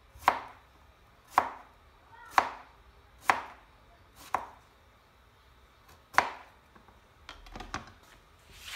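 Chef's knife chopping through a firm orange vegetable onto a plastic cutting board: six sharp chops about a second apart with a short pause before the last. Near the end, a few lighter clacks as the slices are gathered up on the board.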